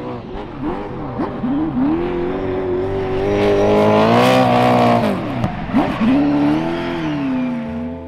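Sprint-car V8 in a Nissan S13 Silvia drift car revving hard while drifting: quick blips up and down over the first two seconds, then held at high revs with the noise of spinning rear tyres. The revs drop sharply about five and a half seconds in, then climb and hold again.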